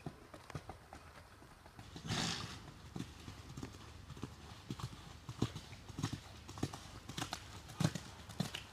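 A horse's hooves clip-clopping in an uneven beat of knocks, with a short breathy burst from the horse about two seconds in.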